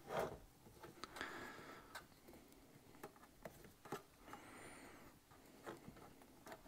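Faint, scattered clicks and taps of metal hydraulic quick-disconnect fittings being handled and threaded by hand into a Quickjack lift's power unit, with soft rustling between them.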